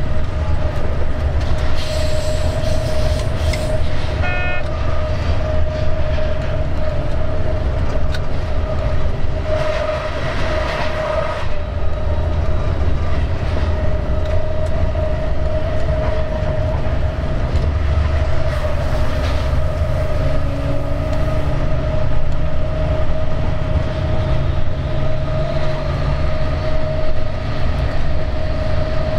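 Vossloh G 1206 diesel-hydraulic locomotive running under way, a steady low engine rumble with a constant mid-pitched whine, mixed with the noise of the wheels on the track.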